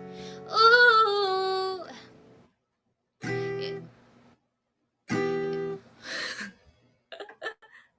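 A woman sings a held, sliding 'ooh' over acoustic guitar. Then two strummed acoustic guitar chords sound about two seconds apart, each ringing briefly, followed by a few short, fainter sounds near the end.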